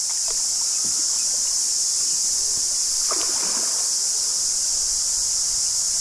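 Cicadas singing in a steady, high-pitched chorus, with the low rush of the river's water underneath.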